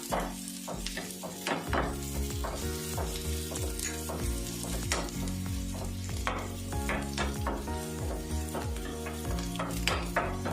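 Sliced onions and curry leaves sizzling in hot coconut oil in a pan, with repeated strokes of a spatula stirring and scraping them as they fry towards golden brown.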